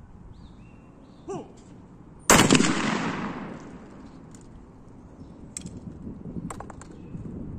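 A single shotgun shot about two seconds in, at a clay target, with a long echoing tail that dies away over a second or so. A few light clicks follow later.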